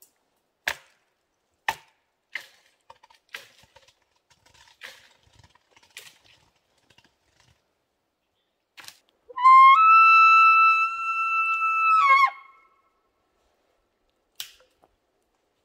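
Elk bugle: a high whistle that slides up, holds for about three seconds, then drops off. It follows a run of sharp cracks and clicks.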